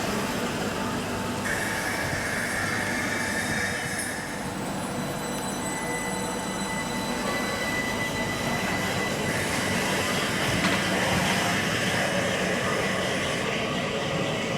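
Southeastern electric multiple-unit train running at the station, with steady running noise and a high steady whine over it for several seconds in the first half.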